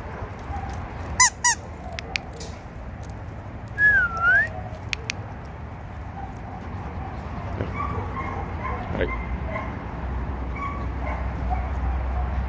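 Dogs giving two short, high yelps about a second in, then a whine that dips and rises in pitch around four seconds in.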